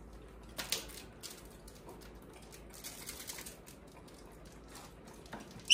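Faint clicks and rustles of monkeys' hands working food in a stainless steel bowl. A sudden loud, high monkey squeal breaks in at the very end.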